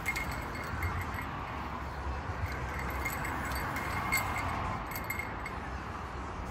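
Steady rumble of road traffic on the overhead bridge, swelling and fading once through the middle, with faint light metallic tinkling.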